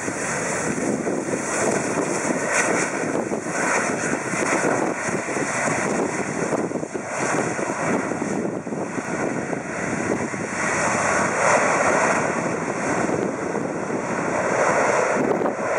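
Rolls-Royce Trent 700 jet engines of an Airbus A330-300 rolling out on the runway after landing: a loud, steady rushing jet noise that swells about eleven seconds in.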